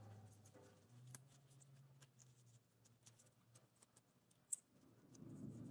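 Near silence: faint handling noises from small die-cast model wheels being picked over on a paper towel, with light ticks and one sharper click about four and a half seconds in. A faint low hum fades out about two and a half seconds in.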